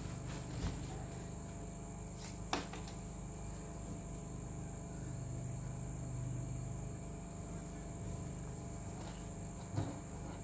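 Soft handling sounds of fabric being folded and a tape measure laid along it, a few light taps and rustles, the clearest about two and a half seconds in and near the end. Underneath runs a steady high-pitched drone with a low hum.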